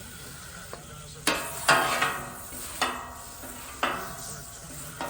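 Food sizzling in a frying pan, with a cooking utensil striking and scraping against the pan four or five times, each stroke fading quickly.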